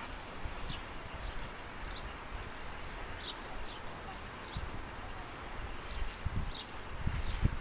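Wind buffeting the microphone in uneven gusts, strongest near the end, with short high chirps of birds repeating every second or so.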